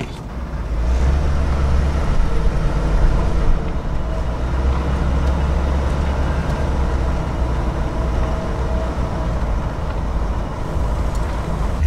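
Motorhome pulling away and driving slowly, heard from inside the cab: a steady low engine and road rumble that comes up about a second in and holds.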